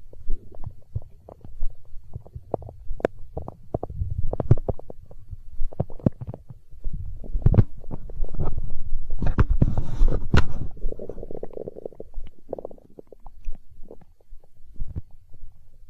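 A human stomach growling and gurgling from hunger: irregular low rumbles and bubbly pops, building to a louder run of gurgling a little past the middle and ending in a short pitched growl.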